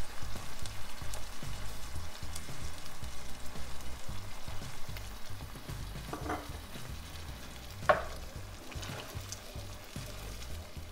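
Tomato passata sizzling as it is poured into a hot pan of sautéed onions and garlic, then stirred with a wooden spoon. A short sharp tap about eight seconds in.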